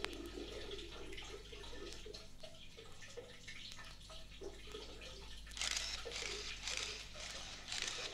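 Water dripping and splashing, with a run of louder splashing bursts from about five and a half seconds in, over a steady low hum.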